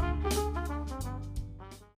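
Jazzy background music with brass and a steady bass line, fading out to silence at the end.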